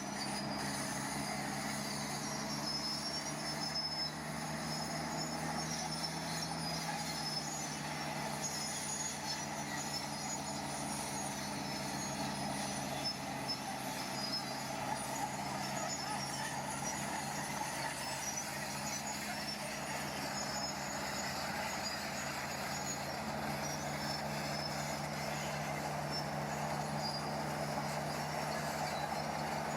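Heavy earth-moving machine's diesel engine running steadily, a continuous low hum with mechanical noise over it.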